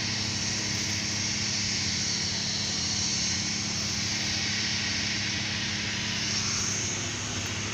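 A steady low mechanical hum with an even hiss above it, unchanging throughout, with no separate events standing out.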